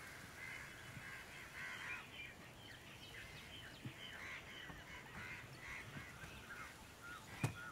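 Faint background chatter of birds, many short calls repeating without a break. A single sharp click near the end.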